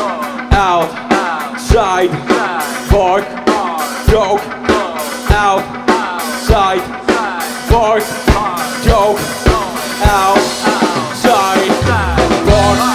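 A rock band playing an instrumental passage live. The drum kit keeps a steady beat with bass drum and snare hits, and electric guitar lines bend up and down over a held note. Low bass notes come in near the end.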